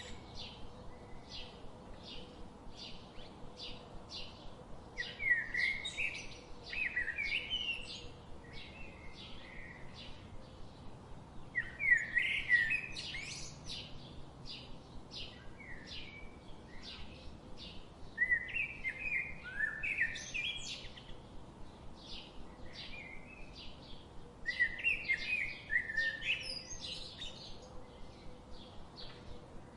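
Small songbirds chirping: a steady run of short, high chirps about two or three a second, broken every few seconds by louder bursts of quick twittering.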